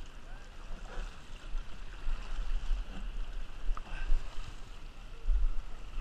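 Shallow river current running and lapping close to the microphone, with a steady low rumble.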